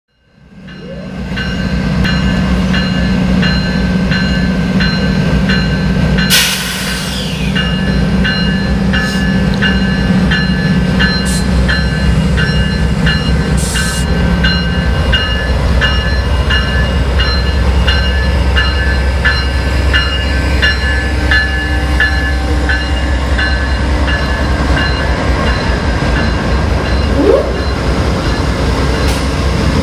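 A pair of GE P40DC diesel-electric locomotives with V16 engines running under power as the passenger train pulls out, their low engine drone growing heavier about halfway through. Over it the locomotive bell rings steadily, about one and a half strokes a second, stopping a few seconds before the end. A brief hiss of air comes about six seconds in.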